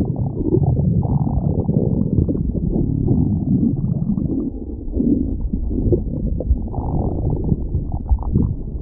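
Human stomach growling and gurgling: a continuous, shifting low rumble broken by many short bubbling pops, dull with no high sounds.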